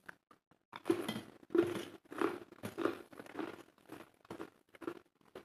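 Close-up chewing of a mouthful of food, with regular wet chews about twice a second, loudest in the first couple of seconds.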